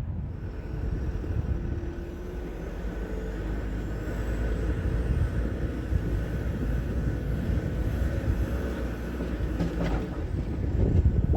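Diesel engine of a 2008 Mecalac 12MTX mobile excavator running steadily, with a faint steady whine over the low rumble and a short clatter near the end.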